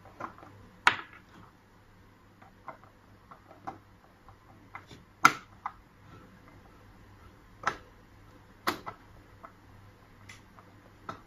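Scattered sharp clicks and light taps, several seconds apart, from handling the metal parts of a mechanical push-button door lock during installation.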